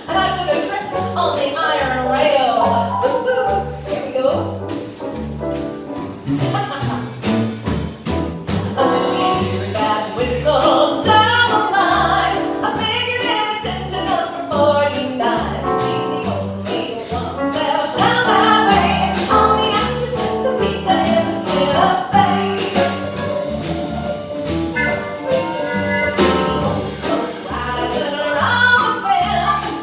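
Music with singing over a steady beat, with percussion.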